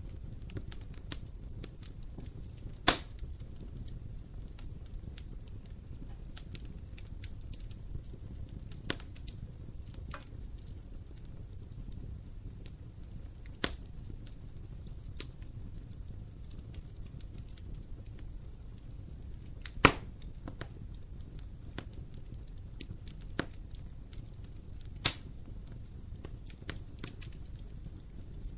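Wood fire burning in an open fireplace: a steady low rumble of flames with frequent small crackles and a few loud sharp pops from the burning wood, the loudest about three seconds in, near two-thirds of the way through, and shortly after that.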